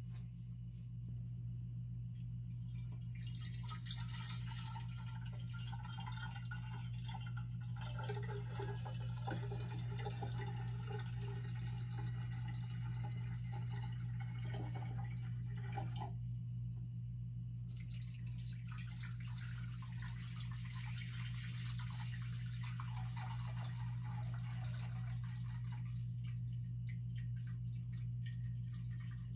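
Saturated salt water poured from a glass beaker into a glass bowl and glass aspirator bottle: trickling and splashing that stops briefly about halfway through, then resumes. A steady low hum runs underneath.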